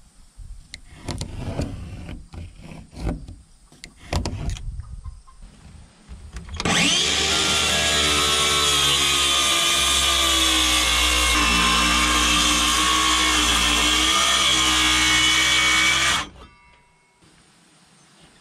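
DeWalt circular saw starting up and cutting into the wooden board wall along a pencil-marked opening. It runs steadily at full speed for about ten seconds and stops abruptly near the end. Before it, there is scraping and knocking of a pencil and level on the boards.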